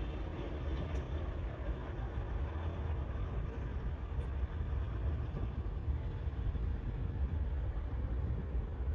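A steady, low rumble of engine noise outdoors, with no rise or fall in pitch.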